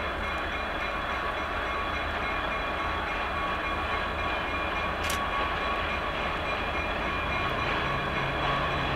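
A train approaching while still out of sight: a steady rumble with a faint steady hum, slowly growing louder, and a low engine drone joining near the end.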